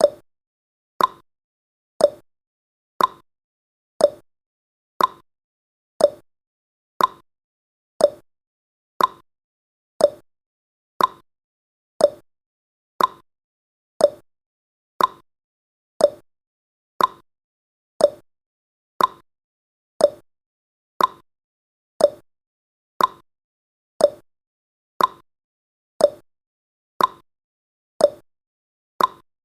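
Countdown timer tick sound effect: one short, sharp tick every second in an even, steady rhythm.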